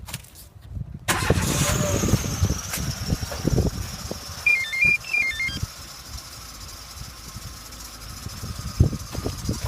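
Renault Logan 2 engine starting about a second in and settling to idle, with a thin high whistle running over it that drops slightly in pitch as the idle settles. The whistle is the idle fault that a new resonator fitted under warranty did not cure. A short chirping sound is heard near the middle.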